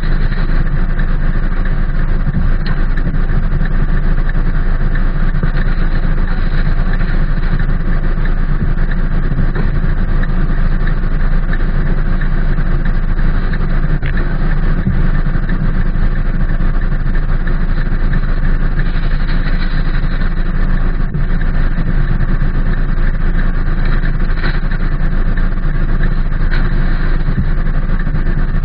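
Rain on a car heard from inside the cabin: an unbroken hiss over a steady low rumble, with a few faint clicks.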